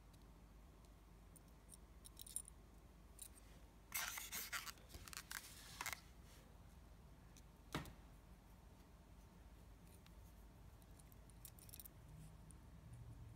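Faint handling sounds of fishing line being worked between the fingers while tying a nail knot: a short, broken stretch of scratchy rustling about four seconds in lasting some two seconds, and a single click a couple of seconds later, otherwise near silence.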